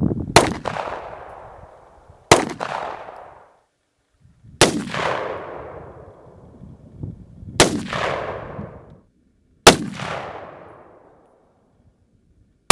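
Single gunshots, five in all, roughly two to three seconds apart. Each is a sharp crack followed by a long echoing decay.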